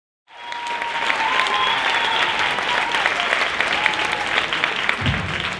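Audience applauding, with a few cheers or whistles over the clapping. There is a short low thump about five seconds in.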